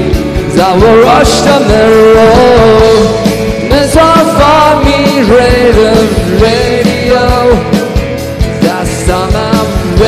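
Live rock band performing: a male lead voice sings in English over strummed acoustic guitar, electric guitar and a steady drum beat.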